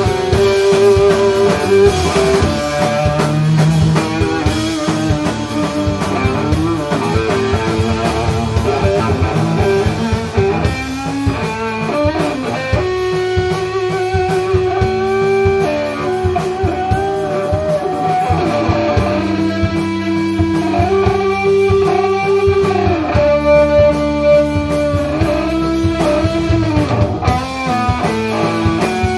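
Live instrumental rock from a guitar, bass and drums trio: distorted electric guitar playing sustained, bending lead notes over a bass line and steady drumming.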